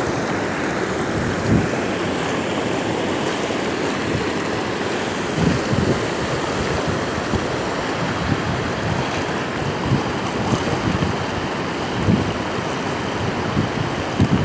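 Muddy floodwater rushing and churning as it pours over a broken earthen embankment, a steady rush of water. Gusts of wind buffet the microphone now and then.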